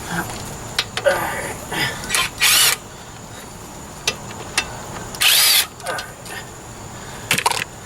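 A cordless power tool runs in two short bursts of about half a second each, a few seconds apart, as bolts are run out during a brake job. Metal clicks and clinks come between the bursts.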